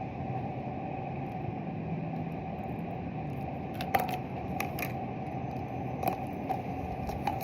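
Steady background hum with a few small clicks and taps, the loudest about four seconds in.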